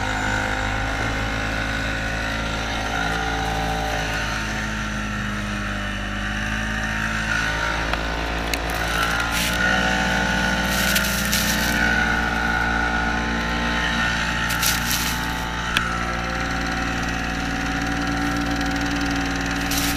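Snowmobile engine running steadily at speed, its pitch rising and dipping slightly as the throttle changes. A few brief rushes of noise come over it partway through.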